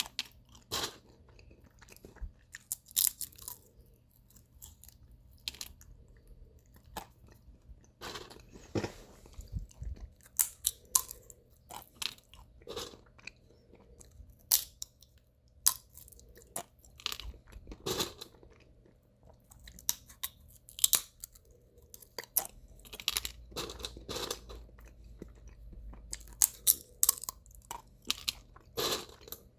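Sunflower seeds in the shell being cracked open and chewed: sharp, irregular crunches and clicks of breaking husks, some in quick clusters.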